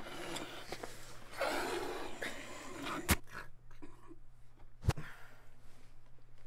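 A person breathing heavily in breathy gusts, with two sharp clicks a little under two seconds apart in the middle, over a steady low hum.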